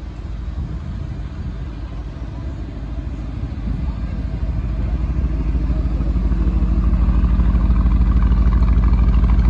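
A low vehicle engine sound with a fast, even pulsing beat, growing steadily louder through the second half.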